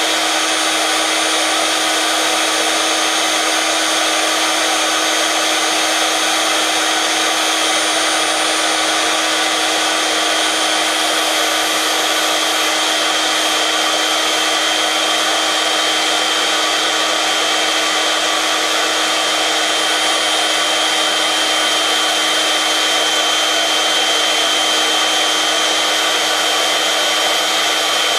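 Small electric air pump running steadily with a constant whine, as when inflating an inflatable boat.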